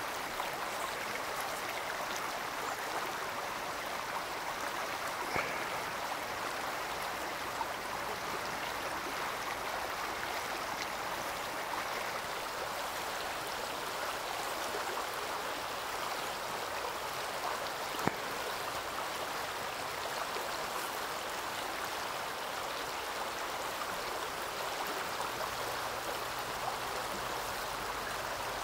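Fast, shallow river water rushing steadily over rapids. A single sharp click comes about two-thirds of the way through.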